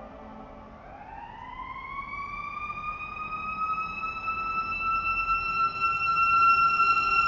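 Federal Signal Selectone electronic warning siren starting its wail: a tone rises from low over about two seconds, then holds high and grows steadily louder. It is the warning that the fire company's air horns are about to blast for a fire call.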